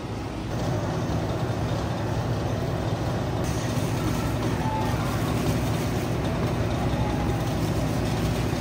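A steady low rumble of machinery or ventilation noise, with faint voices now and then.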